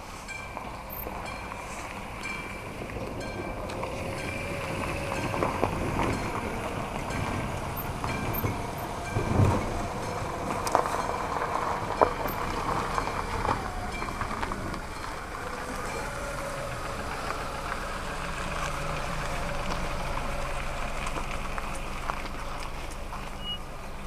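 AŽD 97 level-crossing warning signal ringing with a regular electronic ding about once a second while its barriers lower, with a vehicle engine running close by and getting louder.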